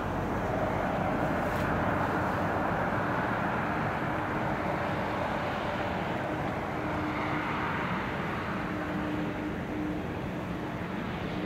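Jet airliner on final approach: a steady rushing engine noise with a faint droning tone beneath it.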